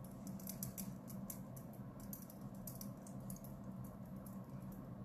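Makeup brush bristles buffing cream stick foundation into the skin: soft, quick scratchy strokes, several a second, over a low steady hum.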